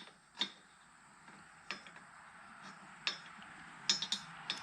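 Scattered sharp metallic clicks and clinks of small parts and hardware being handled as a tractor tail light assembly is fitted back into place. There are a few isolated clicks, then a quick cluster near the end.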